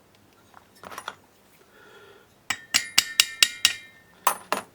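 Small metal parts and tools clinking and ringing against each other as the trimmer engine's flywheel and key are handled for refitting: a few light clicks, then a quick run of about eight bright clinks about two and a half seconds in, and two more near the end.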